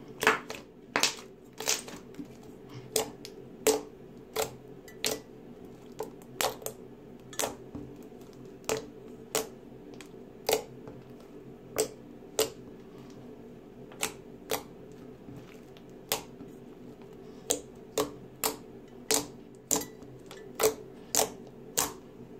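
Slime being poked and pressed, giving a run of sharp, crisp pops about one every three-quarters of a second, over a steady low hum.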